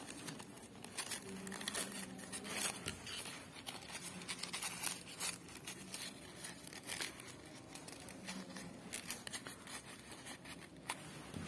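Faint rustling and crinkling of a yellow paper petal being handled and pressed around a paper flower bud, with small scattered clicks.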